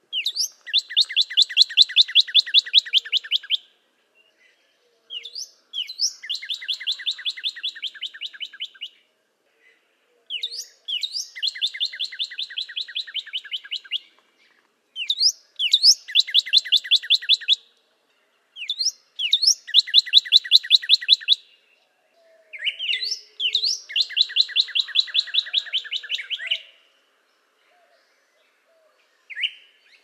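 Northern cardinal singing: six repeated songs, each a few sharp slurred notes running into a fast trill of repeated whistled notes, with a short pause between songs.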